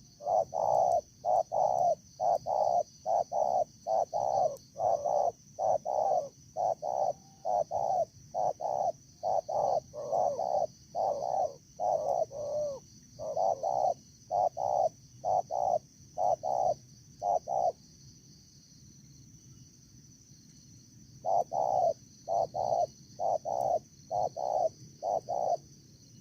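A dove cooing in a fast, regular series of short low notes, about two a second. The notes break off for a few seconds, then a shorter series follows near the end.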